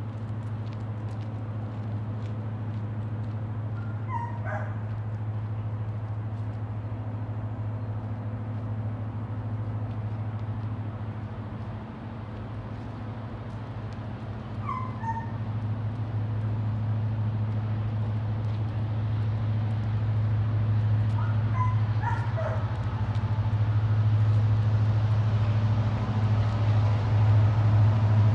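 A dog yipping in short, falling, high-pitched calls, in three brief clusters, over a steady low hum.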